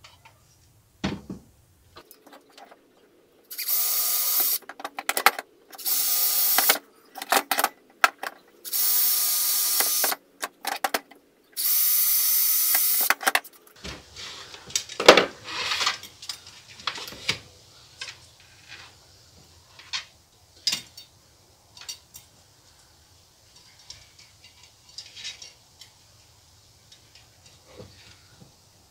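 Power drill boring holes in a few short runs of one to two seconds each, about four or five in all, through the first half. After that come scattered clicks and knocks as the parts are handled.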